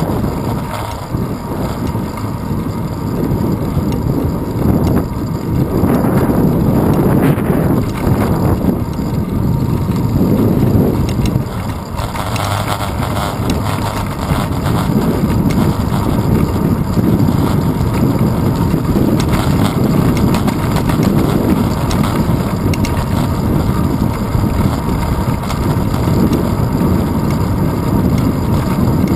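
Wind buffeting the microphone of a handlebar-mounted GoPro Hero 2 on a moving bicycle: a loud, steady low rumble that swells and dips with the airflow.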